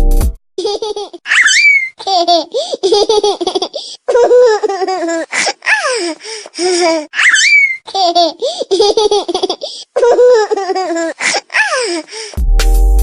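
Laughter ringtone: high-pitched laughter in bursts of giggles with short breaks between them. The same stretch of laughter comes round again about six seconds later, as a looped ringtone does.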